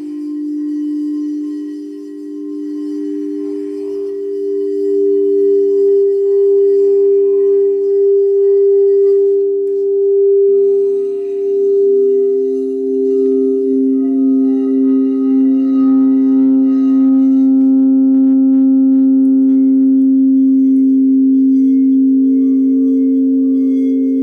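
Several quartz crystal singing bowls ringing together in long, overlapping sustained tones. A new, lower bowl tone joins about ten seconds in, and another, higher one comes in a few seconds before the end.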